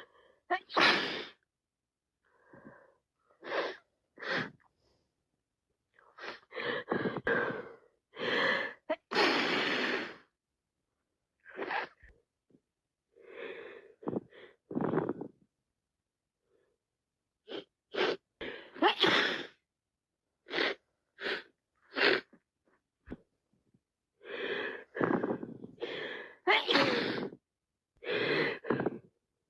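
A woman with a wet head cold sneezing again and again, with sniffles between the sneezes. The bursts come in quick runs broken by short pauses.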